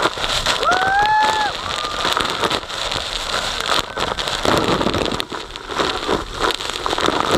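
Spray from the Iguaçu waterfalls pouring down onto the boat and camera like heavy rain, a dense rushing hiss of water. A passenger shrieks briefly about a second in.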